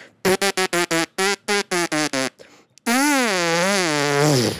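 Trumpet playing about a dozen quick, short repeated notes, then one long note that wavers up and down and slides down in pitch near the end.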